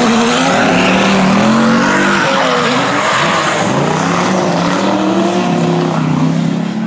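Two drift cars sliding through a corner in tandem, their engines revving at high rpm with a pitch that rises and falls. The tyres squeal and hiss, and the sound eases slightly near the end.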